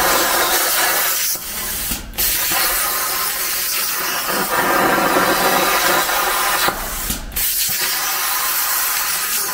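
Titanium 45 plasma cutter torch on a CNC plasma table cutting sheet metal, a steady loud hiss of the arc and air jet. The hiss drops away twice, about two and seven seconds in, breaking off for a moment before the arc starts again.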